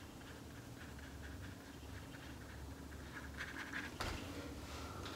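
Faint scratching of a paintbrush working acrylic paint on a canvas, with a few brief, brighter strokes and a light tap about four seconds in.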